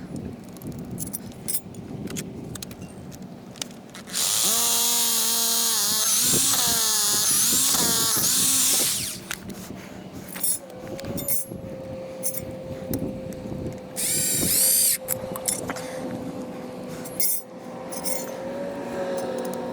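A power drill runs under load for about five seconds, its pitch sagging and recovering, then again briefly later. Scattered knocks and handling sounds come between the runs.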